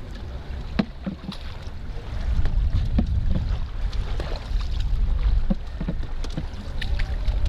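Wind rumbling on the microphone, with scattered light knocks and splashes from a bamboo basket boat on the water.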